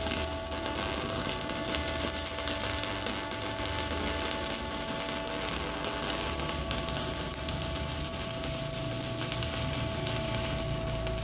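Stick (shielded metal arc) welding with a 3.2 mm E6013 rod on a WeWeld ARC 220 inverter welder set to about 100 A: a steady crackling arc. At this low current the rod still burns well.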